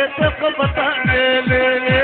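Middle Eastern dance music: a lead melody with ornamented bends and trills over a steady, deep electronic kick drum, about two beats a second.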